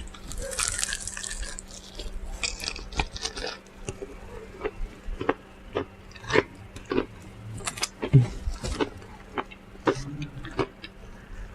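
Wet mouth sounds of someone eating fried chicken: irregular chewing clicks and lip-smacking, several a second at times.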